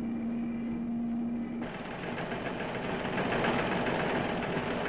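A motor engine running with a rough, rapid beat. It cuts in suddenly about one and a half seconds in, replacing a steady low hum.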